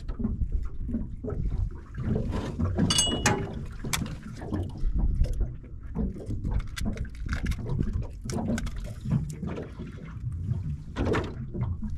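Water slapping against a small boat's hull, with scattered clicks and knocks from a fish and tackle being handled in the boat. There is a brief high squeak about three seconds in.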